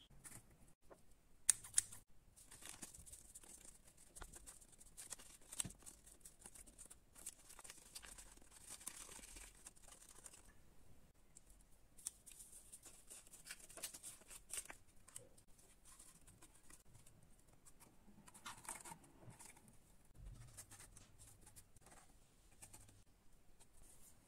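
Faint rustling, scraping and light tapping of cardboard and paper pieces being handled and fitted together by hand, with a few sharper clicks about two seconds in and again near six seconds.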